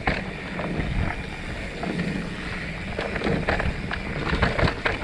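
Mountain bike rolling along a packed-dirt trail: a steady rumble of tyres on dirt and wind on the microphone, with the bike clattering over bumps, the knocks coming more often in the second half.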